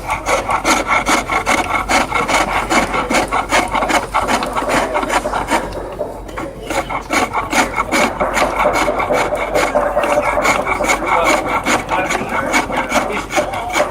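A turning tool cutting wood on a traditional Chinese hand lathe, a rapid, rhythmic scraping as the workpiece spins, with a brief lull about halfway through.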